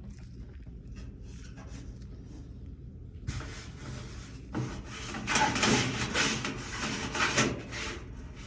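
Rubbing and scraping as a GE dryer's drum and drive belt are handled and shifted into place during a belt installation, starting about three seconds in and loudest in the middle.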